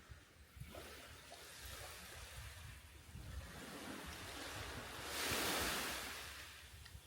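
Sea waves washing onto the beach. The surf swells to its loudest about five and a half seconds in, then draws back.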